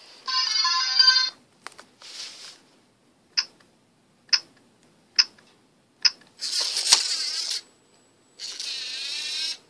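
LEGO Mindstorms NXT brick playing its short startup chime, followed by four short beeps about a second apart as its menu buttons are pressed. In the second half the MindCuber robot's NXT motors whir twice, about a second each, as the robot calibrates.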